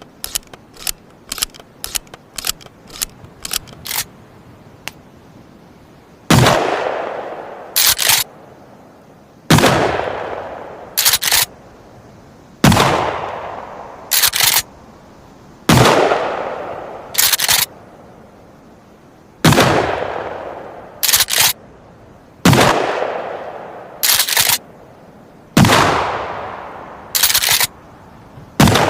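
Remington 870 TAC-14 pump-action firing eight shots about three seconds apart, each boom trailing off over a second or so, followed each time by the pump being racked with two sharp clacks. Before the first shot comes a quick run of short clicks.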